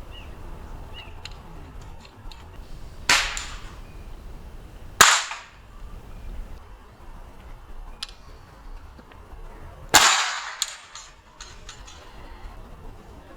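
Three shots from PCP pellet rifles, sharp cracks about 3, 5 and 10 seconds in, each trailing off briefly, with a few lighter clicks in between.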